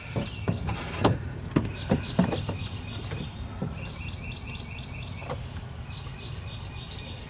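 A bird chirping in quick repeated series of short high notes, with a few light knocks and clunks in the first half from someone handling things inside a boat's hull.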